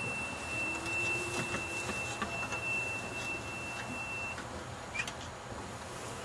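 A steady high-pitched electronic tone, held unbroken for about four seconds and then cut off, over a low background hiss, with a short click about five seconds in.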